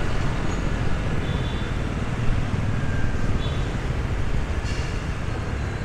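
Motorbike and scooter traffic on a busy city street, heard from within the moving traffic: a steady low rumble of small engines and road noise.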